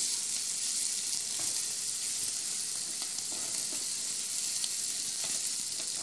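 Bacon strips frying in a small nonstick pan on a gas burner: a steady high sizzle with a few faint clicks as the strips are turned with a plastic spatula.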